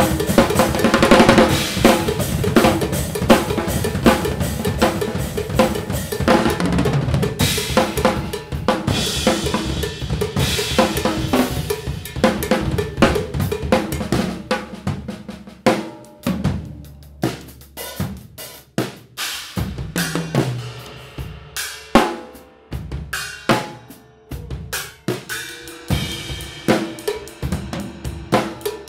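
Two drum kits improvised together: snare, bass drum, toms, hi-hat and cymbals. The playing is dense with ringing cymbals for the first half, then thins to sparser, separate hits with short gaps.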